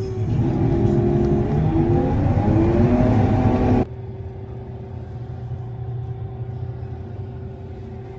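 Heavy farm machinery engine revving up, its pitch rising for about three seconds, then an abrupt change to a quieter, steady engine run with a constant hum.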